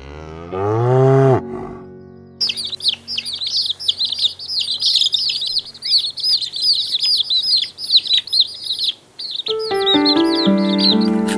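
A cow gives one low moo that rises and then falls in pitch, followed by a flock of small birds chirping busily for about seven seconds. Music with held notes comes in near the end.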